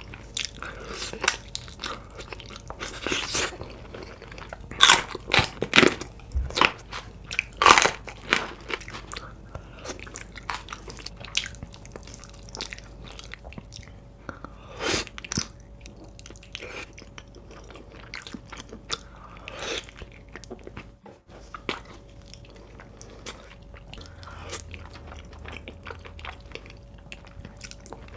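Close-miked eating: biting into and chewing braised beef feet. There is a run of loud bites in the first third, then quieter, scattered chewing.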